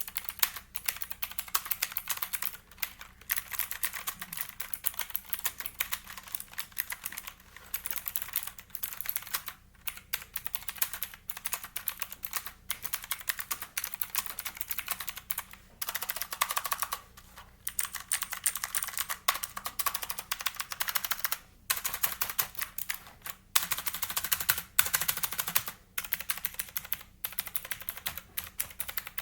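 Typing test on an Aulala F2088 typewriter-style mechanical keyboard: a fast, continuous run of key clicks, broken by brief pauses every few seconds.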